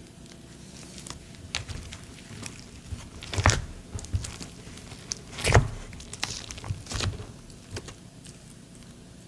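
Thick snow-butter slime being squished and pulled by hand, with scattered sticky clicks and crackles and two louder squelches about three and a half and five and a half seconds in.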